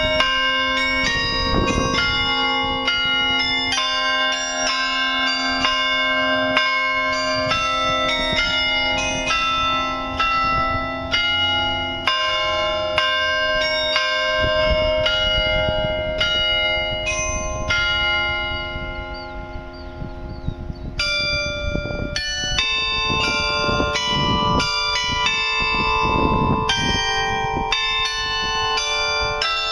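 The New Ulm Glockenspiel's carillon bells playing a melody, with struck notes following one another a few times a second and ringing into each other. About two-thirds of the way through, the tune thins to a few held notes for a couple of seconds, then the run of notes picks up again.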